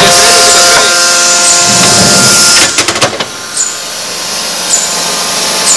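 Forging machine's electric-resistance heating unit buzzing loudly as current heats a steel bar: a steady hum with a hiss. A cluster of sharp clicks comes just under three seconds in, after which it drops to a quieter machine noise. A short high chirp repeats about once a second throughout.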